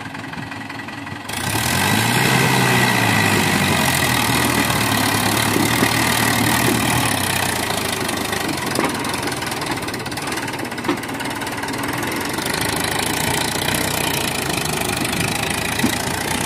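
Mahindra 575 DI tractor's four-cylinder diesel engine working under load as it pulls a fully loaded trolley up a dirt slope. The engine gets louder about a second in, its pitch rising and falling, and there are a few brief clicks later on.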